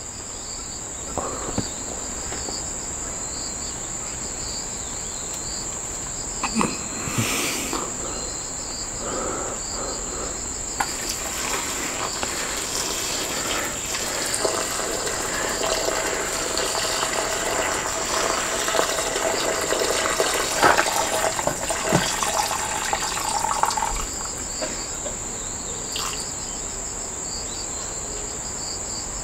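Insects droning steadily at one high pitch, with a louder stretch of noise from about eleven seconds in until about twenty-four seconds in.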